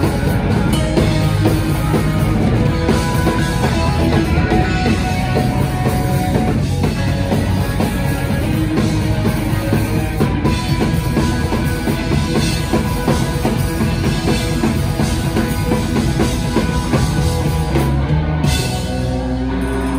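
A live rock band plays loud, with electric guitars, bass guitar and a drum kit. Near the end the cymbals and drums drop out and held notes ring on.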